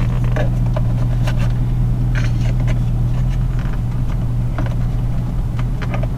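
Light plastic clicks and scrapes as a ProClip dash mount is worked under the edge of a car's dashboard panel, over a steady low hum.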